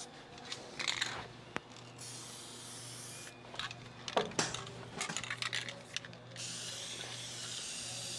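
Aerosol can of copper-zinc weld-through primer spraying in short hissing bursts, with small clicks and knocks of handling in between.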